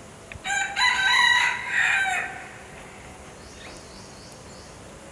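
A fowl's loud crowing call, about two seconds long: several stretched, pitched syllables that end on a falling note.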